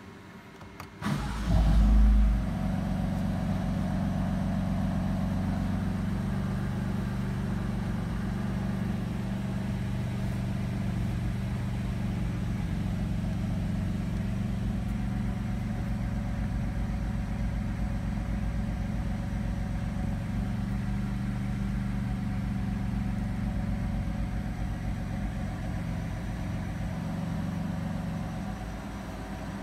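BMW F82 M4's S55 twin-turbo inline-six cranks briefly about a second in, catches with a loud rev flare, then settles into a steady idle, heard inside the cabin. This is the engine starting and running after its dead ECUs were repaired.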